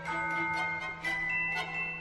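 Background music: bright mallet-percussion tones, like a glockenspiel, over a steady low note, changing pitch about every half second.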